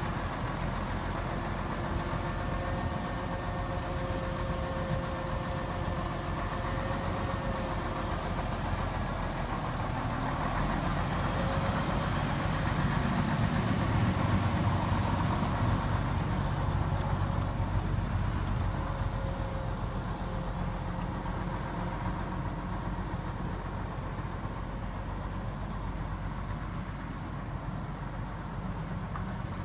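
1968 Mack fire engine driving slowly past at low engine speed, its engine running steadily. The sound grows loudest about halfway through as the truck passes close, then fades as it drives away.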